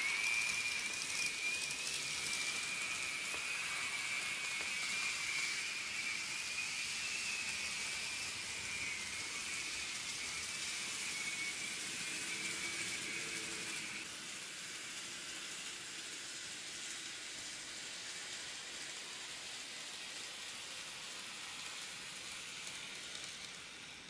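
N gauge model trains running on the layout's track: a steady hiss of wheels and motor with a high whine that drops slightly in pitch and cuts off about fourteen seconds in, after which a quieter hiss carries on.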